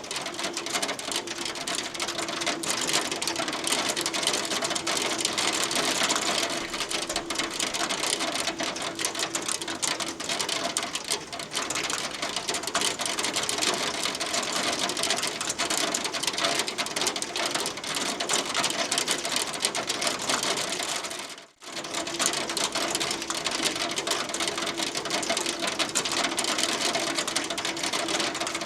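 Hail pelting a hard surface: a dense, steady clatter of rapid ticks over a rain-like hiss, with one sudden brief dropout about three quarters of the way through.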